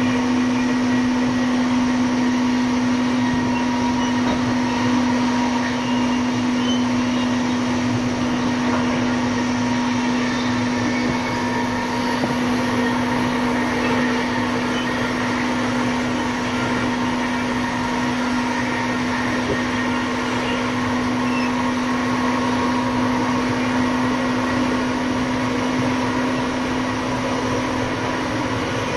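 Siemens Charger diesel locomotive's Cummins QSK95 engine running steadily while the locomotive stands still: an even mechanical drone with a strong constant hum that holds the same pitch throughout.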